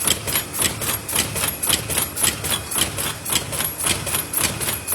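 Leader PL-145 paper lid forming machine running in production, its punching and forming stations clattering in an even, fast rhythm of about two main strokes a second.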